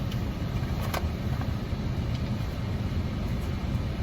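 A car's engine running steadily, heard from inside the cabin as a low rumble, with a faint click about a second in.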